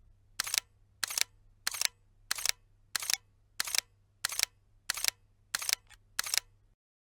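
Camera shutter firing ten times in a steady run, about one and a half shots a second, each release a quick double click.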